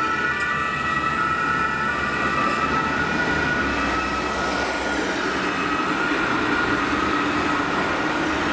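German fire brigade emergency vehicle sirens (Martinshorn) sounding as the vehicles drive off, the tones dropping slightly in pitch about five seconds in, over street traffic rumble.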